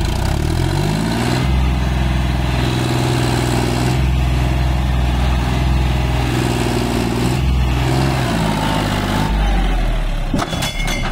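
John Deere 5050D tractor's three-cylinder diesel engine revving up over the first second or so and held at high revs, then dropping back about nine seconds in.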